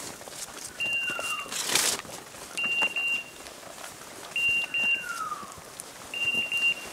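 A hunting dog's beeper collar sounding a high, short double beep about every two seconds, the steady pattern a beeper gives when the dog stands on point. Twice a short falling tone sounds between the beeps, over footsteps and brush rustling through undergrowth.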